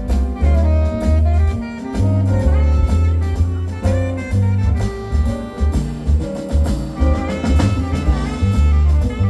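Jazz quintet of trumpet, saxophone, piano, bass and drums playing live: a melodic horn line over a bass line moving in steady notes, with drums and cymbals keeping time.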